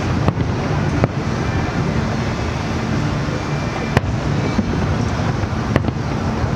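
Fireworks going off at a distance: four sharp bangs over a steady low rumble of overlapping bursts.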